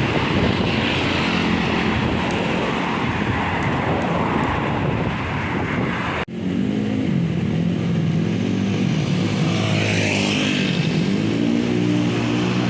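Tour buses driving past on the road: a steady rush of engine and tyre noise. After an abrupt cut about six seconds in, a bus engine is heard revving up and down as it goes by.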